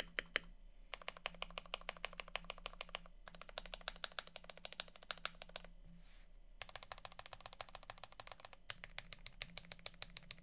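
Rapid typing on an AKKO ACR 98 mechanical keyboard with Gateron Black Ink V2 linear switches, lubed with Krytox 205g0 and filmed. The keystrokes come at about ten a second in runs of two to three seconds, with brief pauses between the runs.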